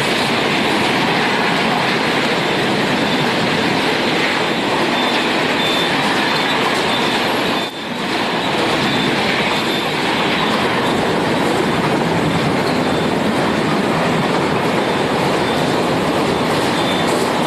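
LHB coaches of an express train running through the station at speed: a steady, loud rush of wheels on rail. There is one brief drop in the noise about eight seconds in.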